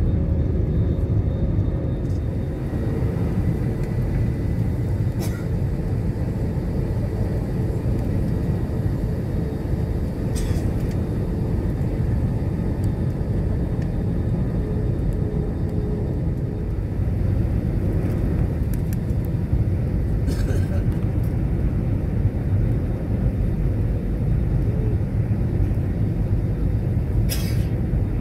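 Steady low rumble of a twin-engine jet airliner's turbofans and airflow heard inside the passenger cabin during the approach to land. A few faint brief clicks come through it.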